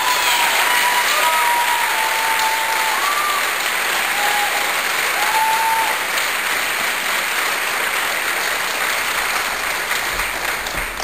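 School theatre audience applauding after a song ends, with a few short whistles above the clapping in the first six seconds. The applause fades away near the end.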